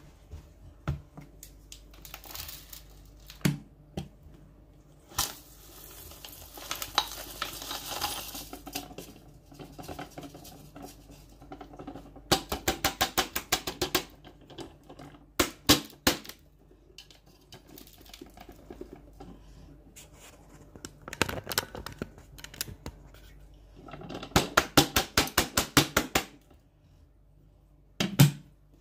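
Plastic beads, sequins, coins and grit being tipped and scattered onto carpet: scattered knocks and rustles, with two runs of quick rattling clicks, one about halfway and one near the end.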